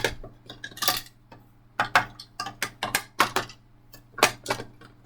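Hard plastic toy parts clicking and clacking in an irregular run of sharp knocks as a plastic raise-buckle toy is worked into a slot in a plastic storage box.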